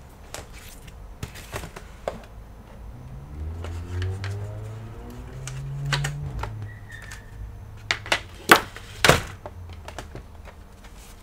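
Scattered sharp clicks and knocks of hands handling computer equipment, the loudest a quick cluster about eight to nine seconds in, with a low hum that rises in pitch between about three and six seconds in.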